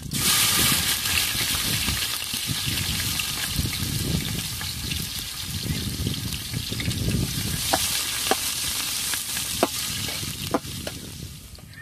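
Chopped onion sizzling loudly as it hits hot mustard oil in a kadai, being stirred. The sizzle starts suddenly, dies down toward the end, and is broken by a few sharp clicks of the stirring utensil against the pan.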